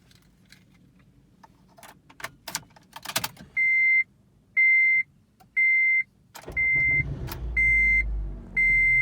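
Keys jangling, then a car's warning chime beeping about once a second, six times. About six and a half seconds in, the 2007 Honda Civic's 1.8-litre four-cylinder engine starts and settles into a steady idle under the chimes, without the loud vibrating rumble now that the worn engine mount and T-bone mount have been replaced.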